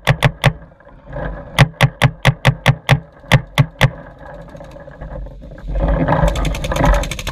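Paintball gun firing in quick strings of sharp shots: three at the start, then about ten in a row at roughly five a second. Near the end a rustling noise comes in with fainter, faster clicking.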